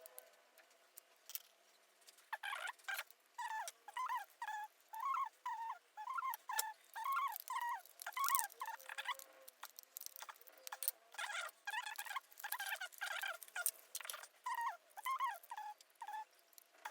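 A small animal squeaking over and over in short rising-and-falling calls, about two a second, with a brief pause about two-thirds of the way through, mixed with sharp clicks.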